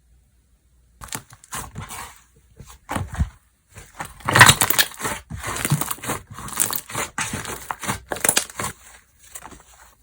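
Hands pressing, folding and stretching slime, making bursts of crackling, clicking and squishing sounds after about a second of silence, loudest near the middle.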